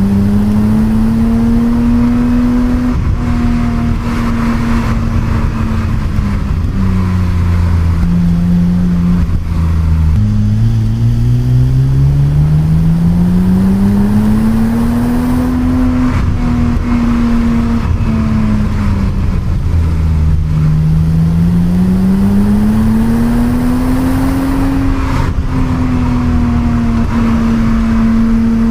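Stock 1988 BMW 325i E30's 2.5-litre straight-six being driven hard, its engine note climbing and falling repeatedly as the car accelerates and slows. The pitch drops suddenly about ten seconds in, at a gear change, then climbs steadily again.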